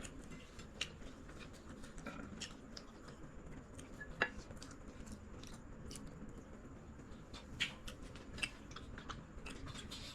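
Eating sounds: scattered light clicks and taps of cutlery and dishes with chewing, the sharpest click about four seconds in and a run of quicker clicks near the end.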